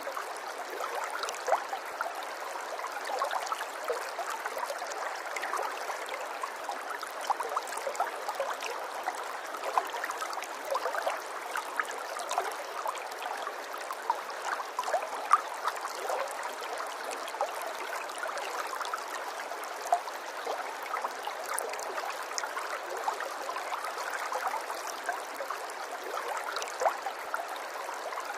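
Running water of a small stream, trickling steadily with many quick little splashes and plinks.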